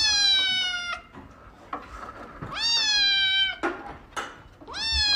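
A kitten meowing: three long, high-pitched meows about two seconds apart, each rising quickly at the start and then sliding slightly down.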